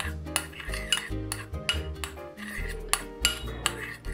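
Metal spoon stirring agar-agar powder into water in a ceramic bowl, with repeated irregular clinks and scrapes against the bowl. Background music plays under it.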